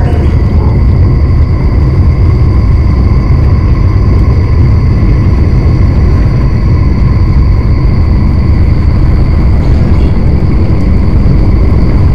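Loud, steady deep rumble with thin, unchanging high tones held above it.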